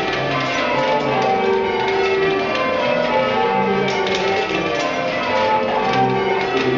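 A ring of eight church bells rung full circle in change ringing, the bells striking one after another in a quick, even succession that runs on without a break.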